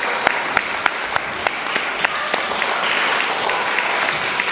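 An assembly of young schoolchildren applauding. A few loud, distinct claps stand out at about three a second, thinning out after about two and a half seconds.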